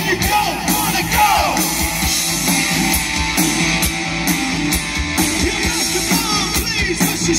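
Live 1980s-style rock band playing, with a steady drumbeat, electric guitar and singing.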